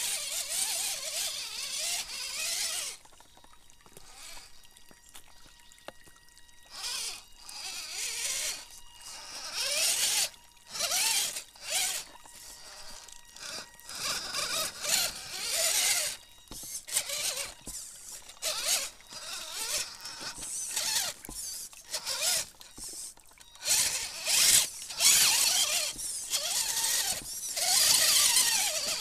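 Radio-controlled rock crawler's electric motor and gearbox whining in short stop-start bursts as it climbs over rocks through a shallow stream, with water splashing under the tyres. It goes quiet for a few seconds after the start, then the bursts come again and again, loudest near the end.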